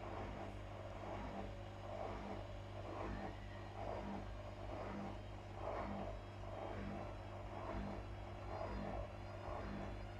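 Whirlpool FL 5065 front-loading washing machine spinning at 600 rpm with an unbalanced load: a steady motor and drum hum that surges about once a second.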